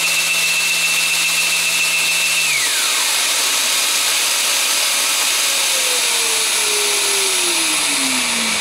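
A cordless Festool random-orbital sander whines, spinning free, while a Festool CT 26 dust extractor runs on its hose with a loud, steady rush of suction. The sander stops abruptly about two and a half seconds in. The extractor runs on for a few seconds after the tool, then from about five seconds in its motor slows, the hum falling steadily in pitch as it winds down.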